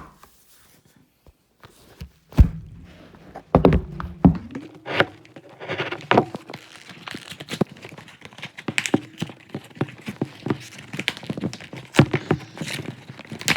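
Handling noise: many irregular knocks, taps and clicks of objects, most likely the boxed headlamp and its packaging, being picked up, moved and set down on a hard surface.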